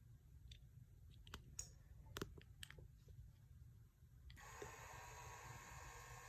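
Faint scattered clicks, then about four seconds in a faint steady whir starts: the power mirror's motor driving the glass side to side, run in reverse.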